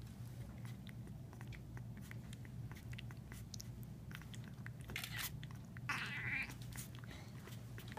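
Week-old Florida panther kitten suckling formula from a baby bottle: faint, quick wet clicks of sucking, with a short cry about six seconds in.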